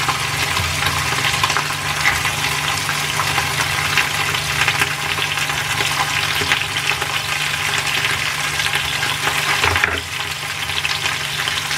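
Fish and tomato wedges sizzling steadily in hot oil in a stainless steel frying pan, with dense fine crackling throughout and a low steady hum underneath. It eases slightly near the end.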